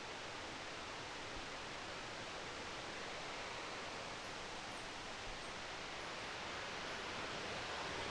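Waterfall cascading over rock ledges, a steady even rush of water.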